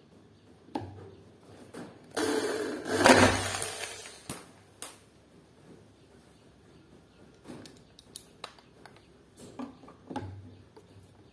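Makita corded hammer drill driving a screw into the aluminium door for about two seconds, then a couple of sharp metallic clicks. Scattered light clicks and knocks of handling follow.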